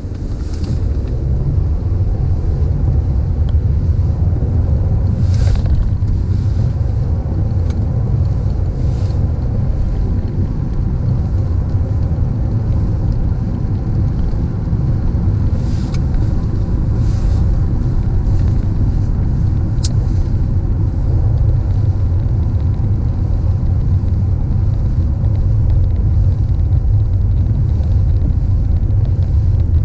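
Car driving on a rain-wet road: a steady low rumble of engine and tyre noise, with a few faint brief swishes now and then.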